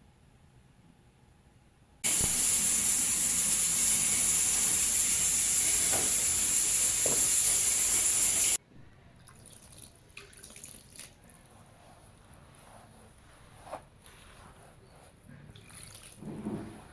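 Steady rush of running water, starting suddenly about two seconds in and cutting off about six seconds later, followed by faint scattered knocks and clinks.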